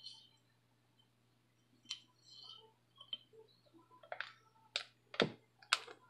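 Metal measuring spoon clicking and tapping against a glass spice jar and glass mixing bowl while measuring out salt: a series of sharp clinks, more frequent and louder in the second half.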